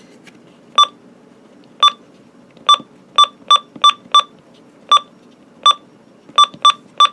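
About a dozen short, identical electronic key beeps from a weather radio receiver, coming at uneven intervals as its buttons are pressed in turn, over a faint low hiss.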